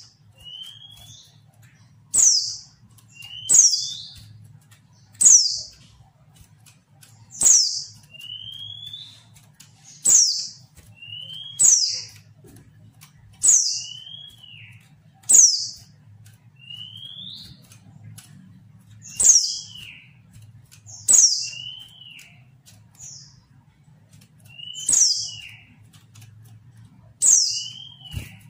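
A female white-eye (pleci) calling over and over, about every two seconds, with two longer pauses. Each call is a sharp, high, downward-sliding note with a crisp click, followed by a short lower rising or arched note. Keepers play these calls as a lure to provoke lazy male white-eyes into answering and singing.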